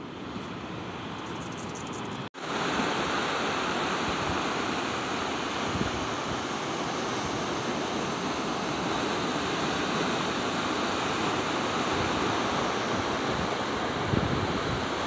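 Ocean surf breaking on the beach below: a steady rushing wash of waves, with wind gusting on the microphone. The sound cuts out for an instant about two seconds in and comes back louder.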